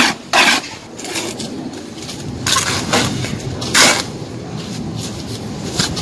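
Masonry hand tools scraping and clinking against wet sand-and-cement mortar: a few short scrapes and knocks over a low steady background.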